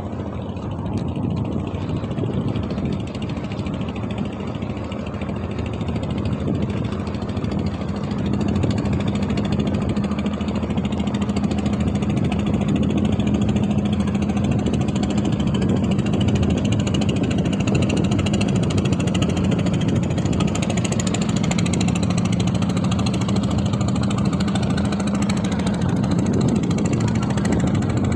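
A boat's motor running steadily on one held pitch, growing louder about eight seconds in.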